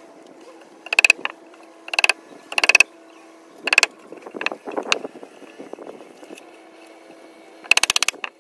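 A chisel struck repeatedly with a mallet, cutting notches into a wooden 4x4 post: sharp taps in short quick clusters about a second apart, then a pause and a final burst of taps near the end.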